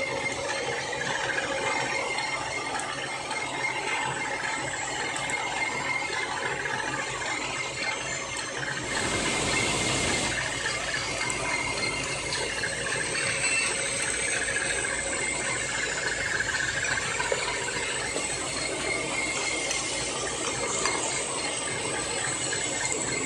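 Gear-cutting milling machine running steadily, a dense mechanical clatter with a thin steady whine, growing louder for about a second and a half around nine seconds in.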